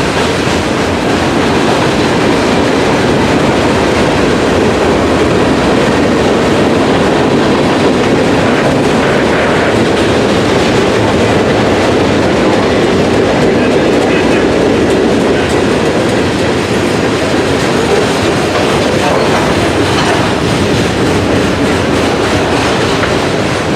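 CSX freight train's cars rolling past, a loud steady rumble and clatter of wheels on the rails.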